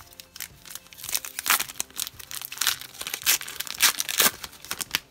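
Foil hockey card pack wrappers crinkling and tearing as they are pulled open by hand: a run of sharp crackles with several louder rips in the second half.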